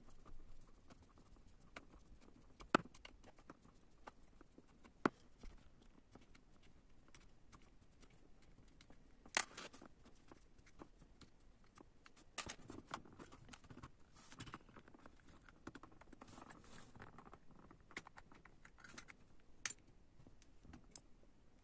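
Small screws being undone and the plastic housing of an OBD diagnostic cable connector being handled and opened: faint scraping and rustling with a few sharp plastic clicks.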